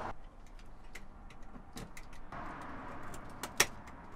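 Scattered light clicks and taps over a faint hiss, with a sharper click about three and a half seconds in.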